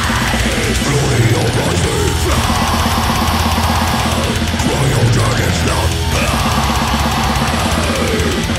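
Heavy metal song: distorted electric guitars over fast, steady drumming, loud throughout.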